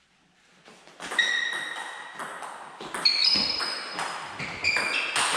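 Table tennis rally starting about a second in: the celluloid-type plastic ball clicks in quick succession off the rubber bats and the table, with long high squeaks of the players' shoes on the hall floor as they move.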